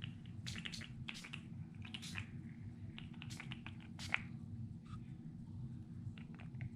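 Pump spray bottle of gold shimmer spray squirted in a series of short, irregular spritzes; some partial pumps spit blobs rather than a fine mist.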